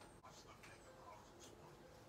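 Near silence: room tone with a few faint soft ticks.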